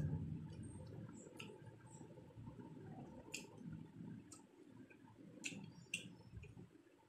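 Faint sounds of eating rice and curry by hand: soft, uneven squishing and chewing, with a few sharp clicks spread through the second half.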